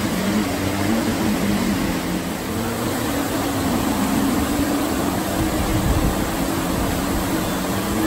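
Steady rushing of water over an artificial rapids cascade, heard as a continuous hiss, under a low droning hum that wavers slightly in pitch.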